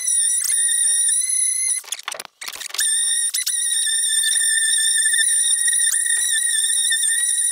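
A steady, high-pitched whistling tone that cuts out for about a second near two seconds in, then resumes, with a few faint clicks.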